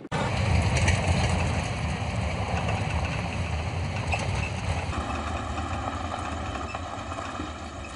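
A motor vehicle's engine rumbling steadily, with road hiss over it.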